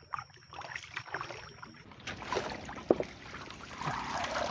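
Paddle strokes in shallow marsh water from a small wooden boat: irregular splashes and light knocks, with one sharper knock about three seconds in and a more steady rush of water near the end.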